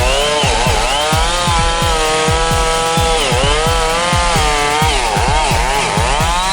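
Two-stroke chainsaw cutting through a thick trunk at full throttle, its pitch dipping and recovering several times as the chain bogs in the wood. A music track with a low beat runs underneath.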